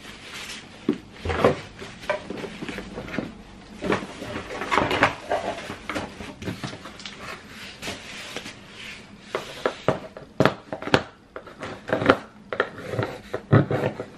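Plastic packaging crinkling and rustling by hand, with irregular sharp clicks and knocks of hard parts being handled during unpacking. The clicks come thickest near the end.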